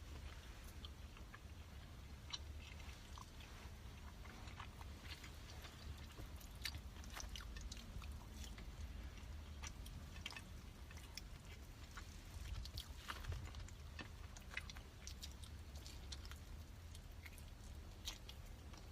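A person chewing egg-yolk pork zongzi, sticky rice eaten close to the microphone, with many small wet mouth clicks throughout. A faint low hum runs underneath.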